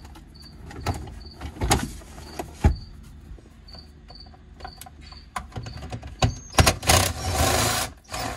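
Knocks and clicks of trim and shifter parts being handled. About seven seconds in, a cordless drill/driver runs for about a second, backing out the bolts holding the automatic shifter. Crickets chirp steadily in the background.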